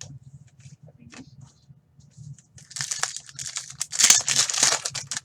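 Trading-card pack wrapper being crinkled and torn open while cards are handled: a few light ticks, then two longer stretches of crackling rustle about three and four seconds in, over a faint steady low hum.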